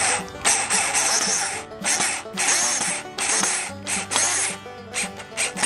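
Cordless drill with a Phillips bit driving a wood screw into a pine board, running in several short bursts with brief pauses, over background music.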